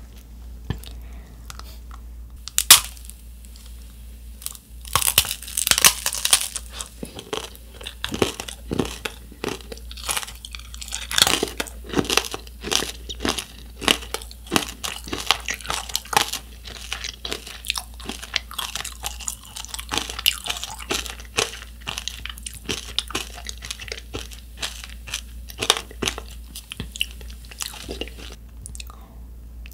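Close-up crunching and chewing of a macaron tanghulu: the hard sugar-candy shell cracks between the teeth with one sharp crack about three seconds in, then dense crisp crunching as the candied macaron is chewed.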